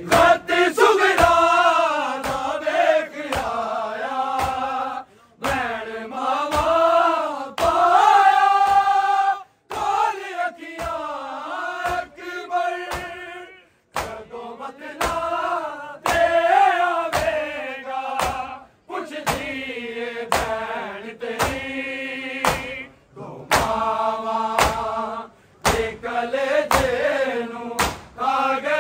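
Male voices chanting a Punjabi noha lament in chorus, in sung phrases of a few seconds with short breaks between them. A regular beat of sharp thumps keeps time under the chant, typical of matam (chest-beating).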